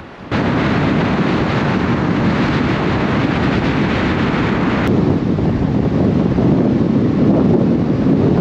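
Heavy wind buffeting the microphone: a loud, even rumbling rush that cuts in abruptly just after the start. About five seconds in its hissy top drops away and a lower rumble carries on.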